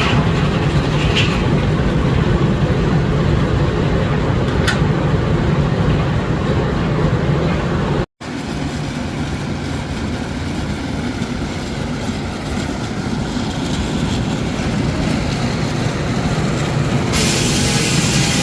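Steam-engine-powered sawmill running: a steady, loud mechanical rumble. It drops out for an instant about eight seconds in, and a higher, hissing layer joins near the end.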